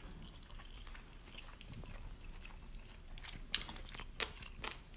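A person chewing a mouthful of chicken wing, faint and wet, with a few short sharp clicks in the second half.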